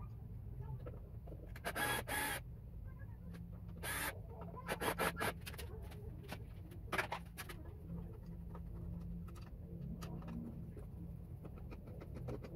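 Cordless drill-driver backing screws out of boat hardware in a few short runs, with small clicks and scrapes of handling between them.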